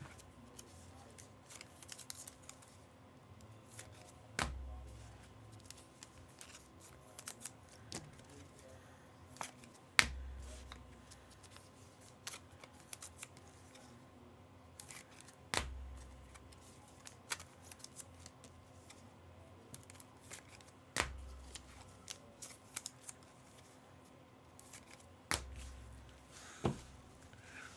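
Trading cards and plastic card holders being handled at a table: faint rustling and sliding, broken by a sharp click with a short low thump about every five seconds, six in all, and a few lighter ticks between.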